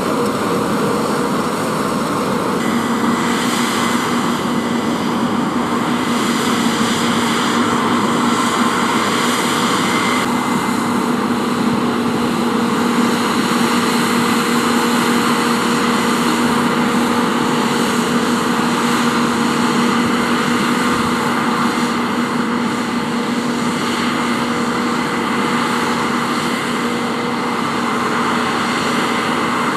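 Case IH Axial-Flow combine harvester working at full load while combining oilseed rape: a steady drone of the engine and threshing gear with a constant low hum.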